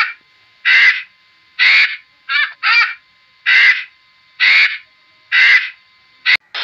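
A bird giving a series of short calls, about one a second, nine in all, with a quicker pair in the middle.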